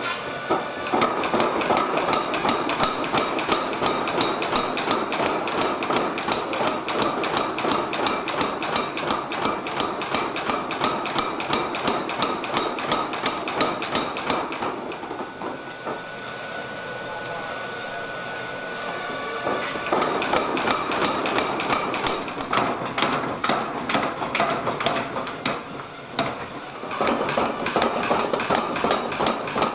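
500 lb Bradley strap power hammer hammering hot steel on a swage block in a rapid, steady run of heavy blows, several a second. The blows stop for a few seconds about halfway, leaving a lower steady running sound, then start again, with a brief drop shortly before the end.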